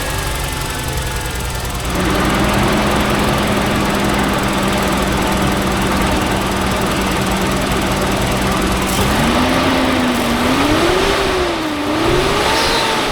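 Nissan RB20DET turbocharged inline-six running: it comes in abruptly about two seconds in and holds a steady idle. From about nine seconds it is blipped a few times, the pitch rising and falling, before settling back down near the end. The engine still has a misfire, running on five cylinders.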